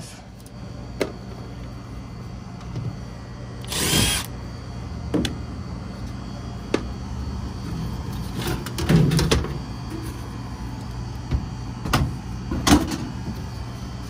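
Sheet-metal access panel on a rooftop package heat pump being opened: a short burst from a power driver about four seconds in, then scattered knocks and rattles of the panel being handled and lifted off.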